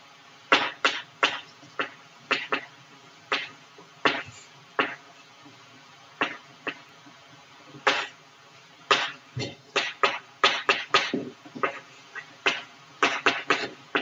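Chalk writing on a blackboard: a string of short, sharp taps and scrapes at an uneven pace, coming thicker in the second half.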